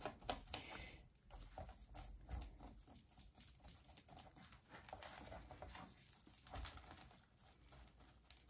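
Faint rustling and crackling of dry potting mix with pine bark, with small scattered clicks, as a jade plant's root ball is worked loose from its pot.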